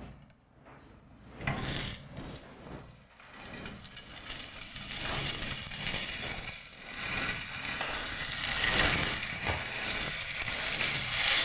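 Beef-wrapped green chili peppers sizzling in hot oil in a nonstick frying pan as they are laid in one after another, a crackling fry that starts faint and grows louder from about a second and a half in.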